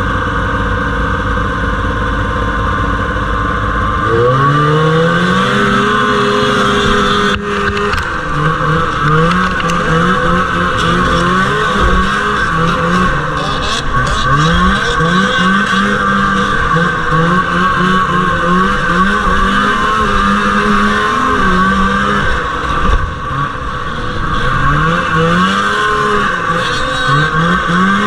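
1979 Arctic Cat Jag 3000 snowmobile's two-stroke engine, heard on board. It idles among other sleds for about four seconds, then revs hard at the start. After that it runs at high throttle, its pitch repeatedly rising and falling as the throttle is worked through the corners.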